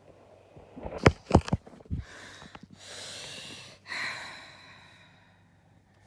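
A cartoon dog's vocal sounds through a tablet speaker: four short, sharp hiccups, then a long breathy exhale and a voiced sigh that fades away.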